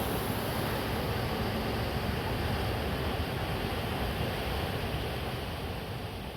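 Steady rushing of a waterfall, an even roar of falling water that slowly fades toward the end.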